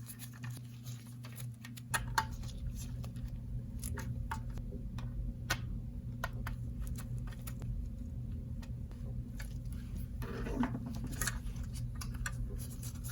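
Small screws being driven by hand into a 2.5-inch SSD's mounting tray with a PH1 Phillips screwdriver: scattered light metallic clicks and ticks as the screws and tools are handled. A steady low hum comes in about two seconds in.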